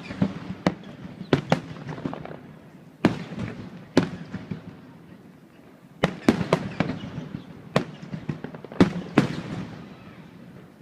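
Aerial fireworks shells bursting: repeated sharp bangs, some in quick clusters, each trailing off into a long rolling echo.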